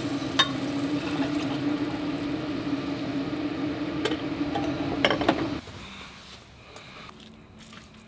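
Glass coffee carafe taken from a drip coffee maker with a clink, then coffee poured from it into a tumbler, with a few more glassy clinks near the end of the pour. A steady hum runs underneath and cuts off about five and a half seconds in.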